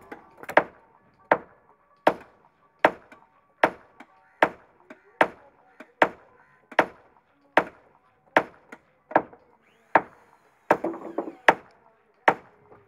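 Hammer driving a nail into the wooden planking of a boat hull: a steady beat of sharp strikes, a little more than one a second, with lighter taps between some of them.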